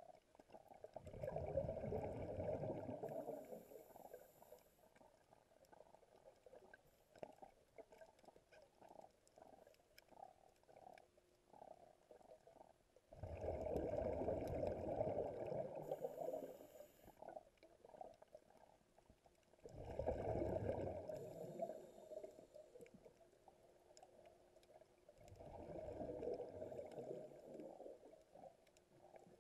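Scuba diver's exhaled bubbles from the regulator heard underwater: a low rumbling rush that comes in four swells of two to four seconds each, in time with breathing, with faint bubbly crackling in between.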